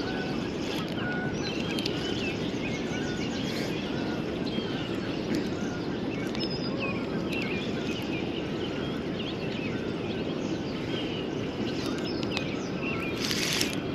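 Steady rush of flowing river water, with birds chirping now and then above it and a brief hiss near the end.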